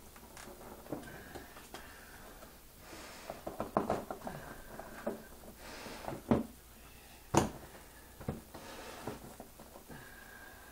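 Handling noises: scattered small knocks, clicks and rustles of things being moved about, with one sharp click about seven and a half seconds in.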